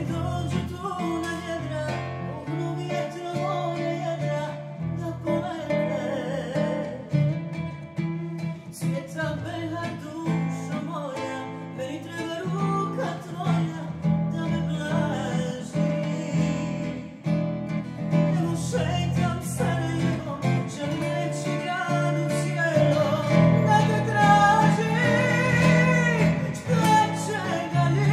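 A woman singing, accompanied by a plucked acoustic guitar; her voice grows louder near the end.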